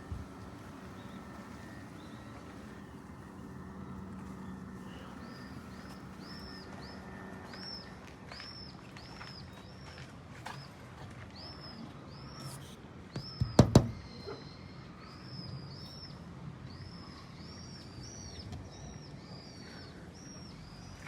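A small bird calling in a steady run of short, high chirps, about two a second, starting about five seconds in. A few sharp knocks come close together near the middle and are the loudest sound.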